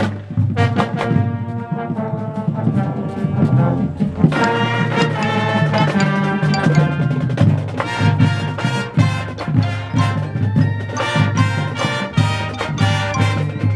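High school marching band playing: brass section, trombones and trumpets, over marching drums. The full brass comes in louder and brighter about four seconds in.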